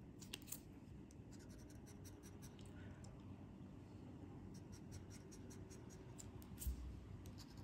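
Scratch card coating being scraped off with a handheld scratching tool: faint, quick scratchy strokes in short runs, with a soft low thump about seven seconds in.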